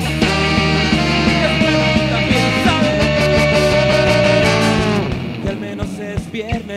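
Live band playing rock-leaning music with electric guitars, drums and a male singer, with a long held note in the middle. Near the end the band thins out to a few separate drum hits.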